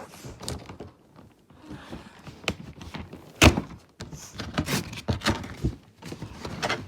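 Handling noises of a toy-car package being worked at: irregular knocks, clicks and rustles, with one loud thunk about three and a half seconds in.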